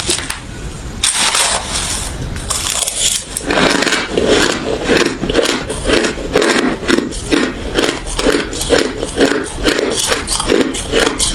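Close-up crunching of refrozen crushed ice being bitten and chewed, softer at first, then a steady run of crunches about three a second.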